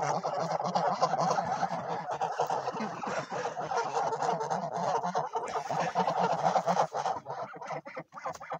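Domestic geese honking and cackling in a dense, overlapping chorus that thins out near the end.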